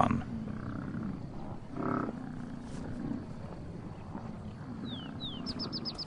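Bison calls: low grunting and a short bawl, the loudest call about two seconds in, with a fainter one just before it.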